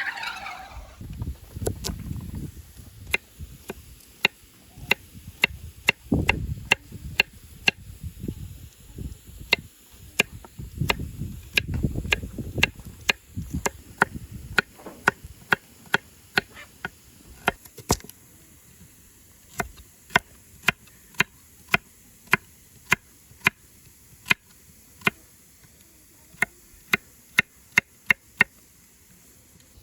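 A knife chopping vegetables on a cutting board in sharp, steady strokes, about two a second, with low rumbling stretches in the first half.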